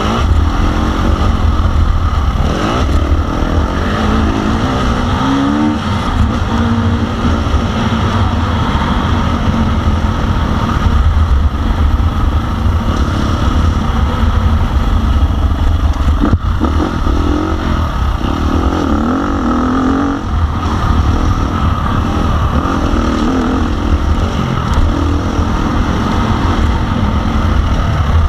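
KTM 350 SX-F motocross bike's four-stroke single-cylinder engine revving up and down again and again as it is ridden round a track, over a steady heavy rumble of wind on the action-camera microphone.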